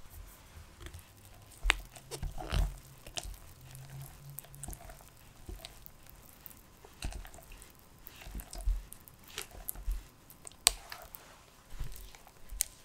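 Thick cake batter being stirred and folded in a glass bowl: irregular wet squelching, with scattered sharp clicks from the utensil against the bowl.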